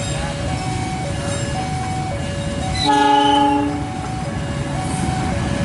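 Diesel locomotive's horn sounding once for about a second midway, the loudest sound, over the low rumble of the approaching train. Throughout, a level-crossing warning alarm alternates between two tones about every half second.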